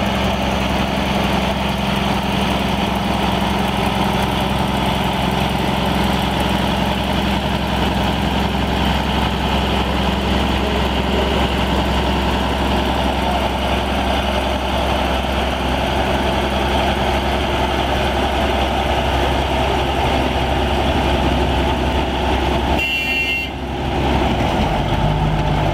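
Upton MT855 tractor's 290 hp Cummins diesel engine running steadily under load as it drags a pulling sled. The sound dips briefly near the end.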